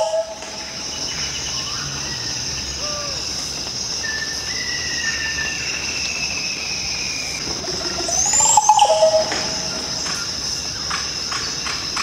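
Green oropendola calling: one loud liquid gurgling song with a sharp rising whistle, about 8.5 seconds in. Under it runs a steady high insect drone, with a few thin gliding whistles.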